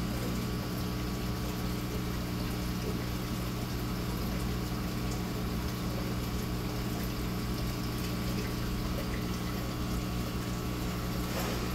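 Aquarium submersible filter pump running: a steady electric hum with the rush of moving water.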